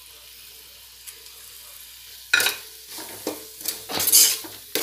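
Steel ladle scraping and stirring the spice powders into a frying onion-tomato masala in an aluminium pot, a string of irregular scrapes starting a little over two seconds in. A faint sizzle of the frying masala runs underneath.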